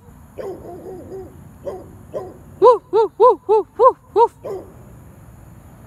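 A black-and-tan dog barking: a few soft calls, then about three seconds in a quick run of six short, ringing, hoot-like barks.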